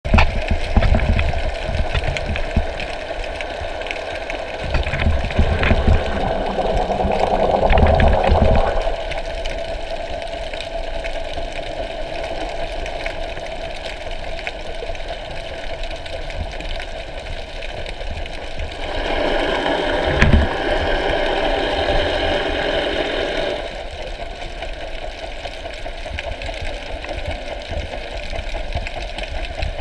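Underwater sound picked up by a submerged camera: a steady mechanical hum carried through the water, with two louder swells and a few low, muffled thumps.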